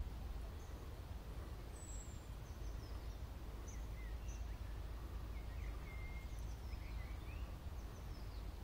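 Outdoor ambience of scattered short bird chirps and whistles over a low, steady background rumble.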